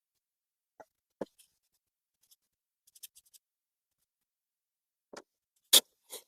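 Scattered faint clicks and taps of small carburettor parts being handled on a workbench, then two louder, sharper clicks near the end.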